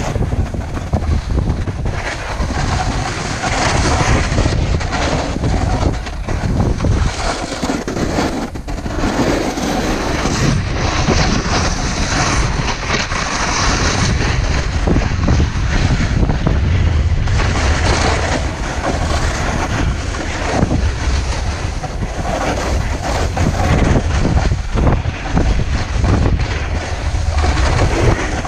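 Snowboard sliding and scraping steadily over the snow on a downhill run, with wind buffeting the camera's microphone.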